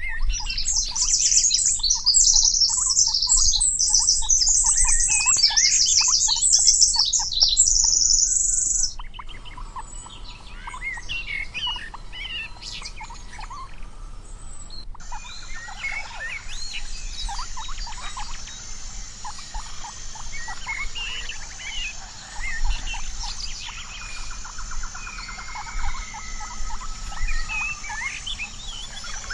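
Many birds chirping and calling in a forest chorus. For about the first nine seconds a dense, loud run of high chirps; after that the sound drops to scattered calls from several birds over a steady high hum like insects.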